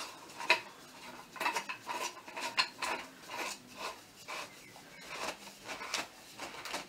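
Coat stand parts being handled and fitted: irregular light clinks and clicks of the hook collar and fittings against the pole, the sharpest about half a second in.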